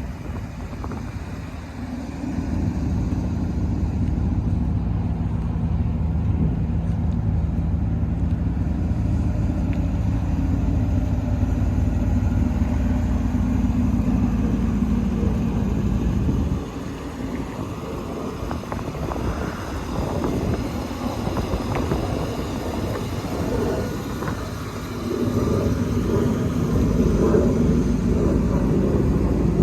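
Car engine running steadily, dropping suddenly about halfway through to a lower, more uneven sound that grows louder again near the end.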